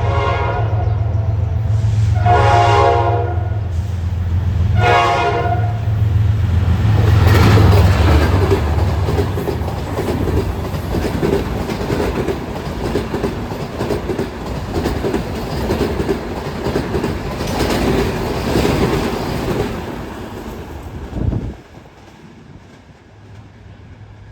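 Diesel train passing close by. The locomotive sounds its horn three times in the first five seconds over a heavy engine rumble. The coaches then roll past with wheels clattering over the rail joints until the sound cuts off abruptly about 21 seconds in, leaving a much quieter background.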